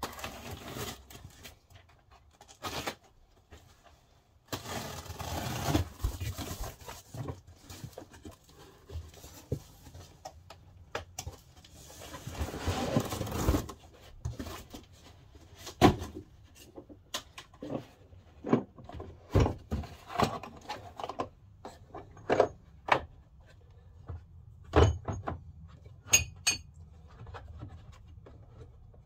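Unpacking a tool kit: rustling of a cardboard box and its packing, then a run of sharp clicks and knocks as a red plastic tool case is set down, opened and its metal hub/bearing puller parts are handled.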